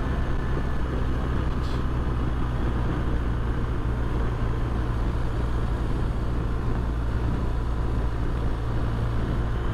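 Motorcycle engine running at a steady speed, with a steady low hum and road and wind noise.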